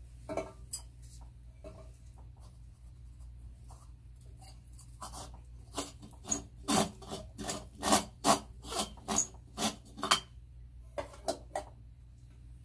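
Screw-in bulb being unscrewed from a metal clamp-lamp socket: its threads scrape and squeak in a run of short strokes, about two a second, that grow louder and closer together through the middle, then stop as the bulb comes free.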